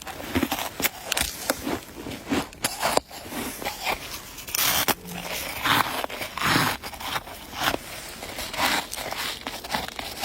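Chunks of ice being bitten and chewed, a dense, irregular run of sharp cracks and crunches.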